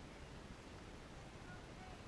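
Faint, steady background noise, mostly a low rumble and hiss, with a couple of faint short chirp-like tones in the second half.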